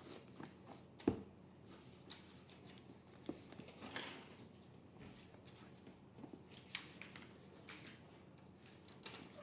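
Scattered light clicks and taps from hands handling a laptop and its small parts, with one sharper knock about a second in.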